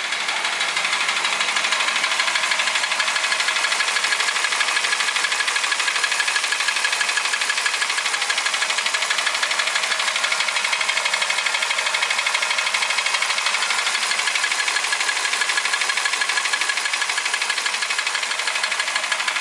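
Toyota Ractis 1.3 2SZ-FE four-cylinder petrol engine running steadily with a fast, even knocking tick. The knock remains after the timing chain, its tensioner and the chain guides were replaced.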